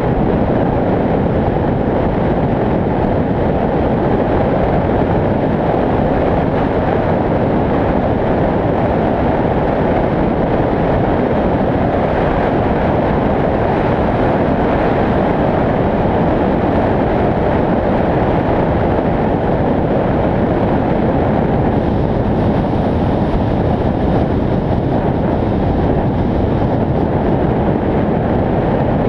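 Steady, loud rush of wind on the microphone of a camera mounted on a moving vehicle, mixed with road noise from driving at speed on asphalt.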